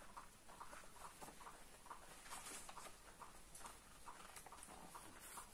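Near silence, with faint, scattered light taps and rustles from a hardcover book being handled and its pages turned.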